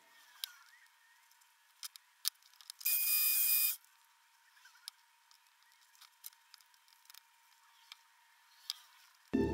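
Scattered light knocks and clicks of pine boards being set down and shifted on a wooden workbench, with one short hiss lasting about a second, about three seconds in.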